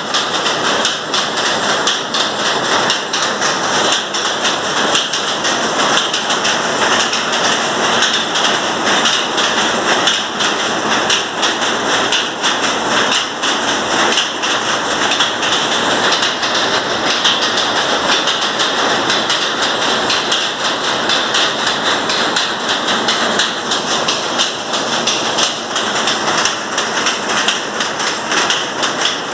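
Power looms with electronic jacquard heads running: a loud, steady, dense mechanical clatter of rapid beats.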